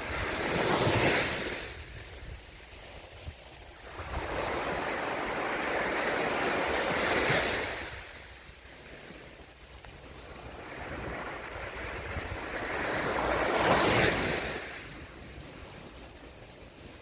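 Sea waves breaking and washing up the shore, rising and falling three times, several seconds apart.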